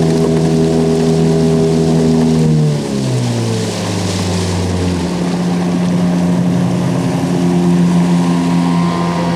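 Small aluminium boats' outboard motors running on open water. The engine note drops about two and a half seconds in, then holds steady, with a constant hiss of water and wind underneath.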